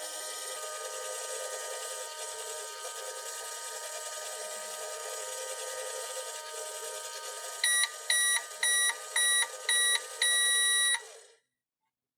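Battery-powered toy microwave running with a steady whirring hum. Near the end of its cycle it gives five short beeps and one longer beep, then stops.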